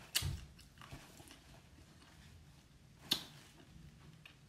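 Close-up eating sounds of a person chewing crab meat and sucking it from her fingers. There are two sharp clicks, just after the start and about three seconds in, with a few fainter ones in between.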